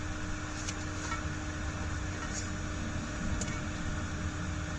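Steady machine-like hum and hiss with a constant tone, a low rumble and a few faint clicks.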